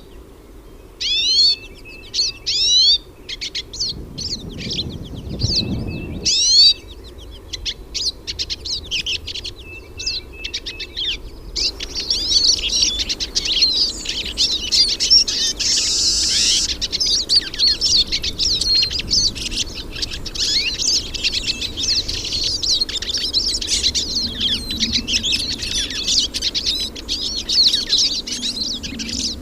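Hooded siskins (pintassilgos) singing: at first separate quick sweeping notes with short pauses, then from about twelve seconds in a dense, continuous twittering of several birds at once. A brief low rumble sounds about four to six seconds in.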